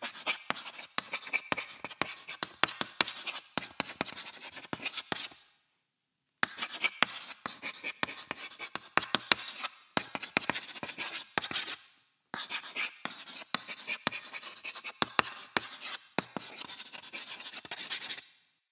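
Chalk writing on a chalkboard: three stretches of scratching with many sharp taps, each about five to six seconds long, split by brief pauses.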